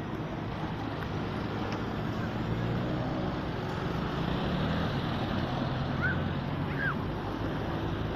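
Steady hum of road traffic: cars driving by, engines and tyres. Two short high chirps come about six and seven seconds in.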